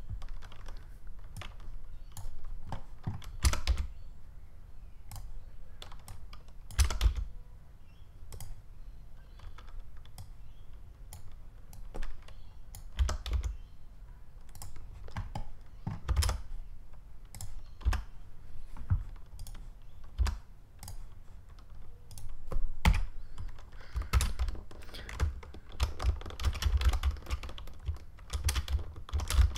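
Computer keyboard keys pressed in an irregular run of separate clicks, some taps heavier than others, with a cluster of them near the end.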